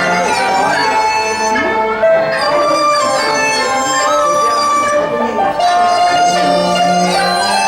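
Teochew opera music: a traditional Chinese ensemble playing a melody in held, sliding notes over a low steady drone.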